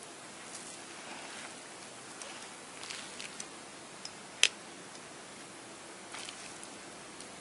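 A serving utensil clicking and scraping on a ceramic plate as spaghetti is set down. There are light ticks and rustles, with one sharp click about four and a half seconds in, over a steady hiss.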